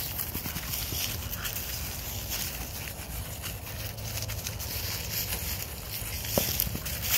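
Dry fallen leaves rustling and crackling as a puppy scrambles after a ball and pushes it through them. A short sharp squeak comes about six seconds in.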